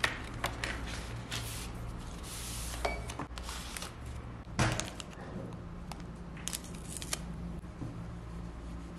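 Paper and card sleeves and the plastic film of a screen protector kit being handled by hand: irregular rustles and light clicks, the loudest a little before five seconds in, over a steady low hum.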